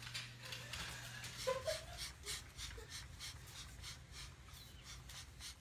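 Hand floor pump being worked in quick strokes: a rhythmic hiss about three times a second.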